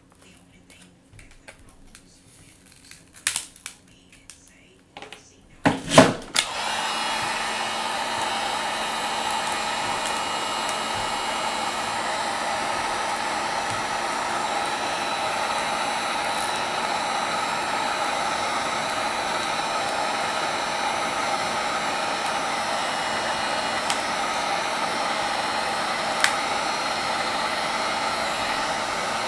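A few sharp clicks and knocks, then about six seconds in a handheld hot-air blower switches on and runs steadily: an even rush of air with a faint low hum. It is heating the thick adhesive under the tablet's cracked touch glass to soften it.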